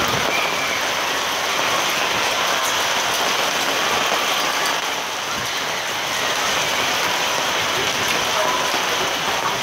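Heavy rain coming down in a steady, dense hiss.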